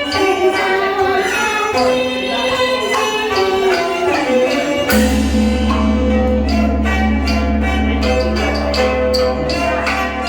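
Teochew opera ensemble playing a traditional melody. About halfway through, a steady low tone and a run of sharp percussion strikes come in.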